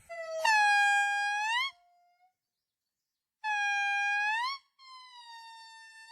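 A monkey giving three long, clear calls, each held at one steady pitch and turning upward at the end. The third call is fainter.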